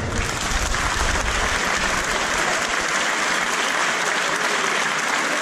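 Audience applauding steadily at the end of a concert band piece, while the band's last low notes die away in the first second or two.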